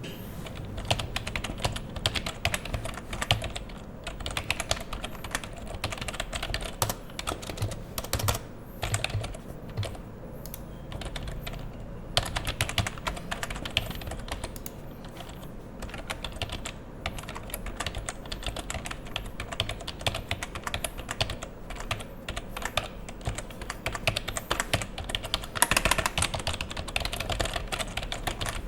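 Typing on a Fujitsu 128872-002 Rev.A keyboard with rubber dome switches: a continuous run of rapid keypress clicks, broken by a few short pauses. A faster, louder flurry of keystrokes comes near the end.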